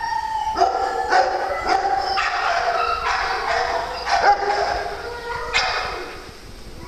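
Dogs at play barking and yipping, with sharp barks coming irregularly, often about half a second to a second apart. The barking dies down near the end.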